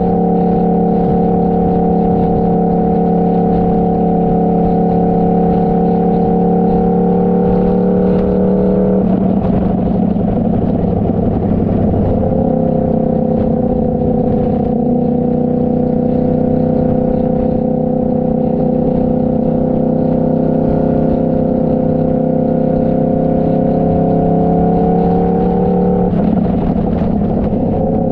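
Motorcycle engine running steadily on the move, its pitch shifting about nine seconds in and again near the end.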